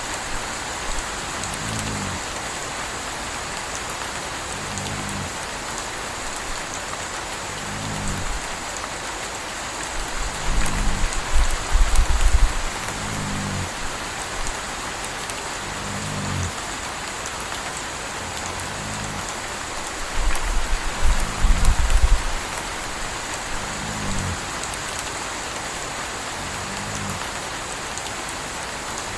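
Steady rain falling, with a puppy snoring in a slow, even rhythm, one snore about every three seconds. Two deeper low rumbles come through, about ten and twenty seconds in.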